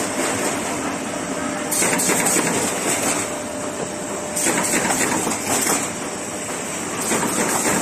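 An automatic corrugated partition assembling machine running: a dense mechanical clatter with a steady hum underneath. Every couple of seconds it swells for a second or so with a louder hiss.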